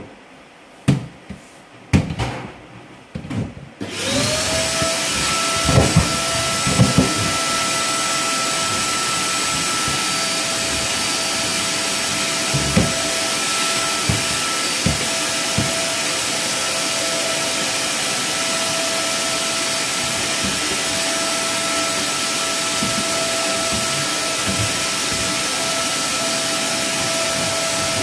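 A few knocks and clatters, then about four seconds in a vacuum cleaner is switched on. Its motor winds up to a steady run with a constant whine, and there are occasional knocks against the floor.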